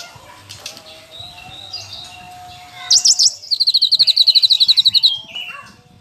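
Caged cucak kinoi, a leafbird, singing: soft warbling, then about three seconds in a loud burst of high sweeping notes followed by a fast, even trill of about a dozen notes a second that stops suddenly, and a few falling notes near the end.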